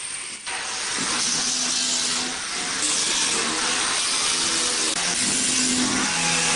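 Corded electric grinder running against a plywood hull panel: a steady, harsh grinding hiss that starts about half a second in.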